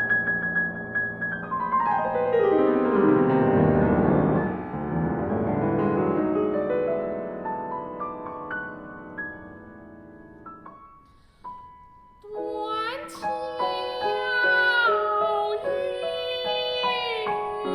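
Piano playing: quick repeated high notes, then a sweep down into the bass and back up, dying away almost to quiet. About twelve seconds in, a voice enters in Peking Opera-style singing, with long sliding notes over the piano.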